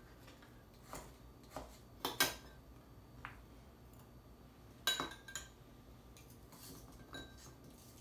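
Scattered clinks and knocks of kitchen utensils: a knife cutting a frozen popsicle on a wooden cutting board and a metal spoon lifting pieces from a ceramic bowl into stemmed glasses. The sharpest clinks come about two seconds and five seconds in.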